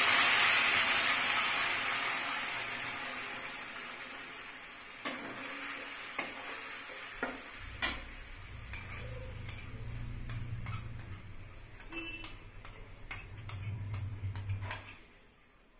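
Wet beetroot paste hitting hot mustard oil in a steel kadai: a loud sizzle that dies down over the first several seconds. Metal utensils click and scrape against the steel pan and jar throughout.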